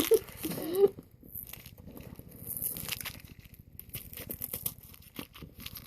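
Plastic candy packaging crinkling and rustling in the hands as it is handled and opened, with small irregular clicks and crackles.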